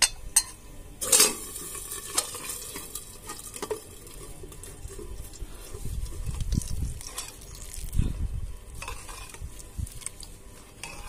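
A steel ladle of hot oil tempering (tadka) with cumin, asafoetida, garlic and dried red chillies, sizzling and spluttering, with sharp metal clinks against a pressure cooker, the loudest about a second in. Dull knocks come later, and near the end the tadka goes into the cooked spinach dal.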